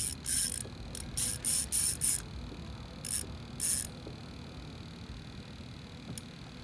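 Fishing reel drag giving out line in short buzzing bursts as a hooked bass pulls against it, a quick run of them in the first two seconds and two more about three seconds in.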